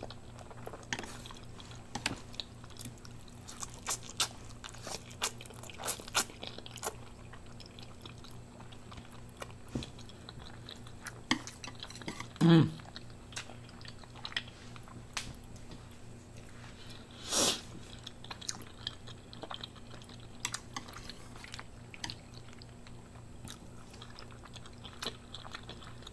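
Close-miked eating sounds: a mouthful of instant noodles being chewed, with many small wet mouth clicks. A brief low hum comes about twelve seconds in, and a short louder burst of noise about seventeen seconds in.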